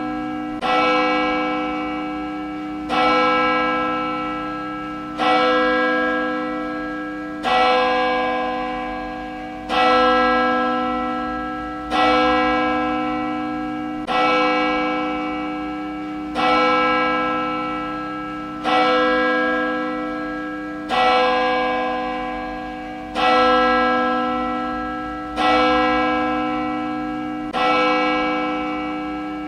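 A church bell tolling at an even pace, struck on the same note about every two seconds. Each stroke rings on and fades until the next.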